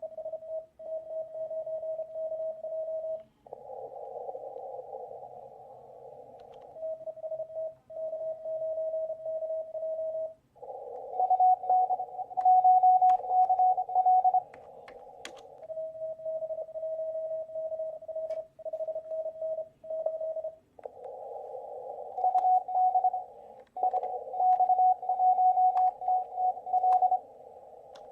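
Morse code (CW) contest signals on a ham radio receiver: keyed beeping tones in dots and dashes over hiss narrowed by a CW filter. Several transmissions follow one another at two slightly different pitches, and the higher-pitched signal is the louder.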